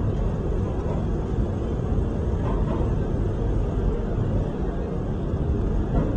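Subway train running along the track through a tunnel, a steady low rumble of wheels on rails heard from inside the train.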